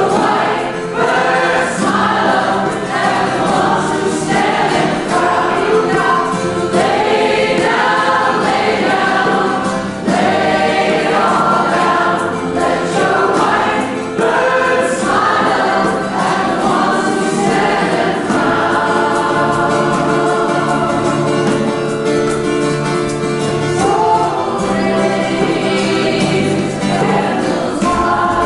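A large group of mostly women's voices singing a hymn together in unison and harmony, with a strummed acoustic guitar. In the second half the singing settles into longer held notes.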